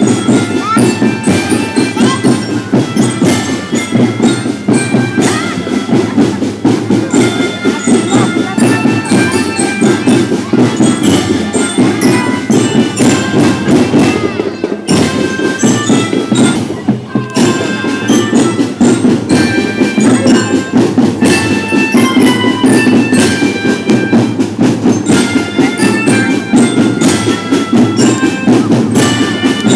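A school marching drum band playing: snare and bass drums beating a steady march rhythm while bell lyres ring out a melody of short, bright metallic notes.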